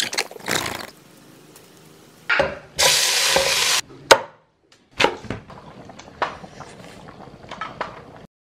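Quick cuts of food-preparation sounds. A second-long burst of hiss starts and cuts off abruptly, then a cleaver chops once sharply through chicken on a wooden chopping block, followed by scattered knocks and clatter.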